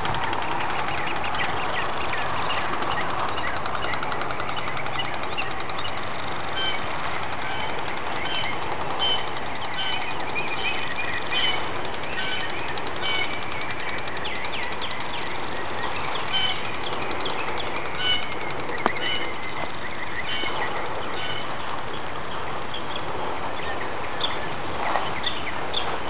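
Spring songbirds chirping and calling in short repeated high notes over a steady background hiss.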